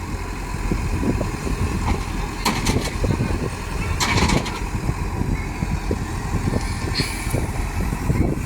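Diesel engine of a Tata Hitachi 70 excavator running steadily, with a few short sharp knocks about two and a half and four seconds in.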